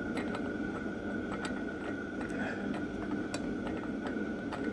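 Scattered light metallic clicks from a threading die being started onto a Predator 212 crankshaft's flywheel-end threads, chasing threads that had been folded over by hammering. A steady hum runs underneath.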